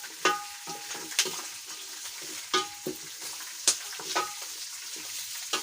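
Boiled chicken pieces sizzling as they fry in their own rendered fat, with no oil added, while a utensil stirs and turns them. About seven sharp metallic clinks against the pot ring out over the steady sizzle.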